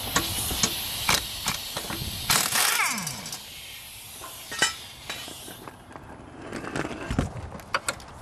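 Pneumatic impact wrench hammering on the mower's blade bolt with the hiss of its air, stopping about two and a half seconds in as the bolt comes loose. After that, a few scattered metal clicks and knocks as the bolt and blade are taken off.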